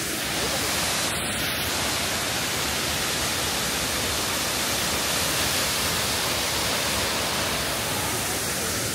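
Steady, even rushing of the Wachirathan waterfall, a drop of about 80 metres.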